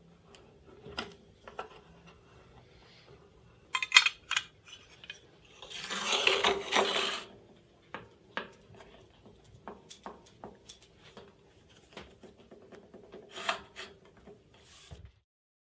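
Metal parts of a table saw's mitre fence and its steel slot bar being handled and fitted into the mitre slot: scattered light clicks and clinks, with a sharp clatter about four seconds in and a scraping metal-on-metal slide about two seconds later.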